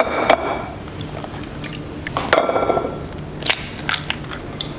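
Eggs being cracked on the rim of a ceramic bowl: several sharp taps, a few of them leaving the bowl ringing briefly.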